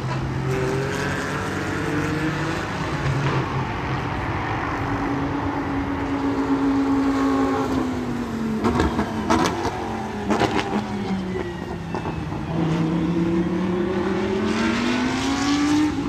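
Racing car engines running, their pitch gliding up and down as they speed up and slow down, with a few sharp knocks about halfway through.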